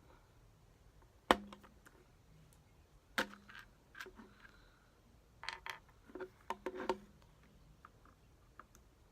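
Sharp plastic clicks and knocks from a Rubik's cube being pried apart with a small flathead screwdriver: one loud click about a second in, another near three seconds, then a quick cluster of smaller clicks.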